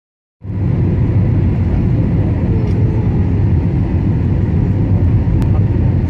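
Steady cabin noise of a jet airliner in flight: a loud, even, low rumble of engines and rushing air, starting suddenly just under half a second in.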